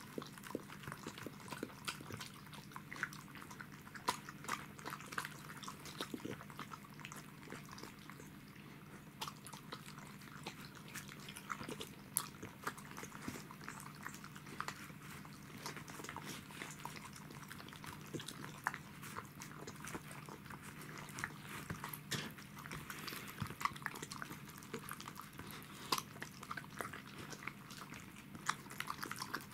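Pembroke Welsh corgi lapping broth and eating from a foil dish: a run of quick, irregular wet licks and small chewing clicks, a little sparser about eight seconds in. A faint, steady low hum runs underneath.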